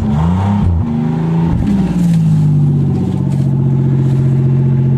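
1990 Oldsmobile Delta 88's 3.8-litre V6 running just after catching on a cold start at −6 °C, unused for months. Its pitch rises and falls a few times in the first two seconds, then it settles into a steady fast idle.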